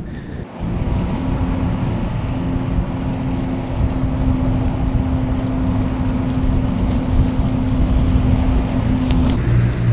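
Ship's engine droning, a steady low hum of unchanging pitch over wind and water noise; near the end the hum gives way to a lower, pulsing engine note.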